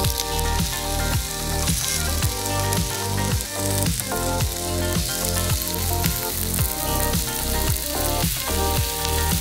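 Zucchini slices and bell pepper strips sizzling as they are laid on the hot ridged plate of an electric grill, with background music carrying a steady beat.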